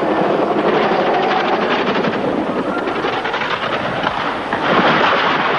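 Helicopter running close by: a dense, rapid rotor chop over engine noise, growing a little louder and harsher about four and a half seconds in.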